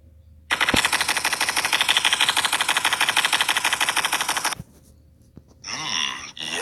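A sustained burst of rapid automatic gunfire, shots coming evenly and quickly for about four seconds before cutting off.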